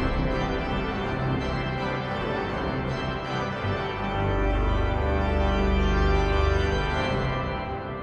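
Sampled pipe organ (the Blackburn Cathedral organ sample set played from a three-manual virtual organ console) sounding sustained full chords over a deep bass, growing louder about halfway through and easing off near the end.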